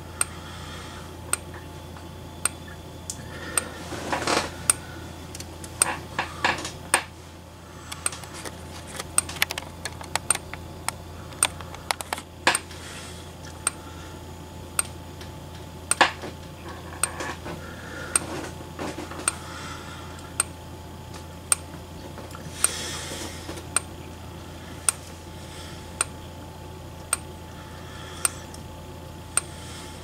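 Xenon strobe of a Gentex SHG horn strobe (110 candela, strobe portion only, horn silent) snapping with a sharp click at each flash, about once a second, over a steady low hum. A few brief rustling noises come in between the clicks.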